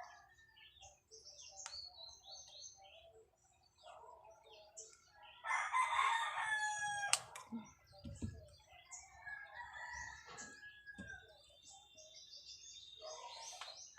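A rooster crows once, about five and a half seconds in, the loudest sound here. Faint clicks and light scrapes of small parts being handled come and go around it.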